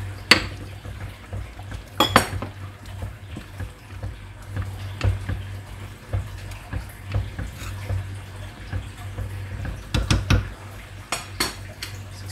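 A metal spoon knocking and scraping against a cooking pot while the curry is stirred, with a few sharp clinks about two seconds in and a cluster near the end, over a low steady hum.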